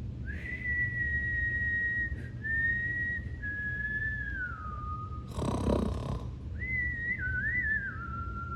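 A person whistling a thin, high tone to imitate a baby's whistling snore: a long whistle that steps and slides downward, a short noisy breath in, then a second whistle that wavers and drops.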